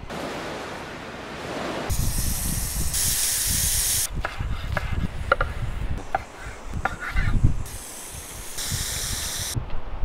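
Two loud bursts of hiss, one about two seconds in lasting about two seconds and a shorter one near the end; between them a chef's knife chops cucumber on a wooden cutting board in a run of sharp knocks.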